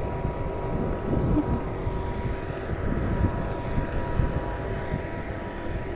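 Steady outdoor rumbling noise, dense and low, that swells gently around the middle and eases off again.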